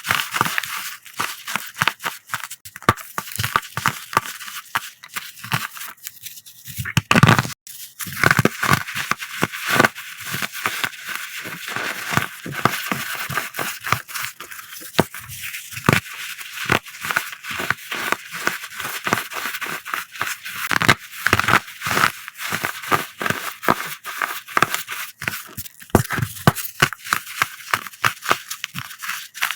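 Coloured pressed-powder blocks being crushed, a dense run of crisp crunches and crackles. One heavier, deeper crunch about seven seconds in.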